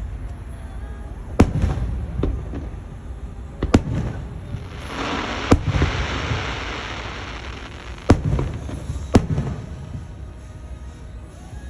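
Fireworks going off: five sharp bangs a second or two apart, each followed by a low rumbling echo, with a spell of hissing crackle around the middle.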